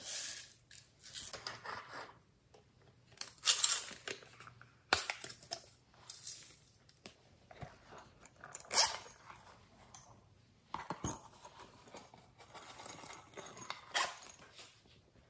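Hands handling plastic and silicone containers and shaking sequins and glitter into a glass tray of slime: irregular rustles, light clatters and sharp clicks, several louder than the rest.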